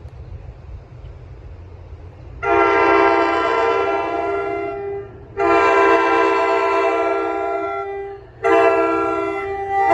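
Locomotive multi-chime air horn sounding two long blasts and a shorter third, with a fourth starting at the very end, over a low rumble: the long-long-short-long grade-crossing signal.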